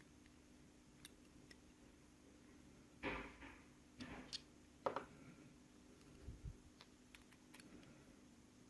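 Faint scattered clicks and a few short scrapes of small metal lock parts being handled as the pins are taken out of a padlock cylinder. The scrapes come about three, four and five seconds in.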